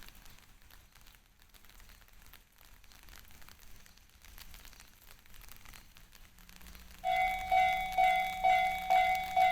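Faint background noise, then about seven seconds in a Japanese railway level-crossing alarm starts. It is the JR-standard electronic bell, ringing loud at a little over two strokes a second.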